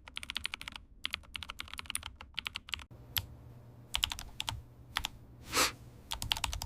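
Rapid, irregular crisp clicking, like keys being typed, that thins out in the middle. There is one brief whoosh about five and a half seconds in.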